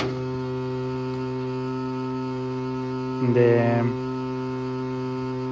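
Washing machine water inlet valve humming steadily with the machine switched off, with a sharp click at the start and a louder buzz lasting under a second about three seconds in. The owner takes it for a broken water valve.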